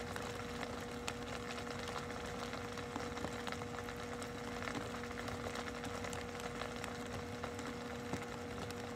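Steady machine hum with a constant mid-pitched tone, over an even low background rumble.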